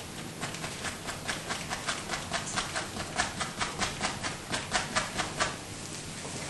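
Paintbrush working against a stretched canvas in quick, even strokes, about four or five a second, stopping about five and a half seconds in.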